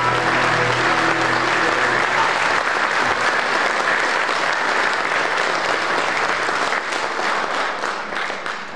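Audience applauding after a song; the final held notes of the music die away about two seconds in, and the clapping thins out near the end.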